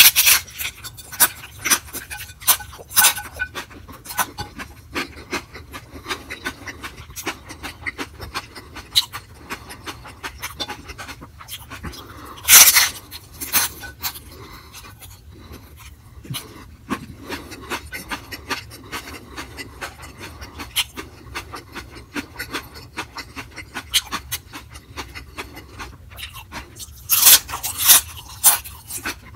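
Close-miked eating: a man biting and chewing a crunchy, sauced bite, with many small crisp crunches and wet mouth clicks. There is a louder crunch about twelve seconds in and a cluster of loud bites near the end.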